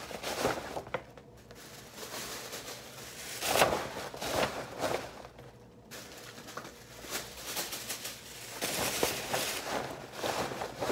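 Paper rustling and crinkling as a paper gift bag and tissue paper are handled, in irregular bursts, the loudest about three and a half seconds in.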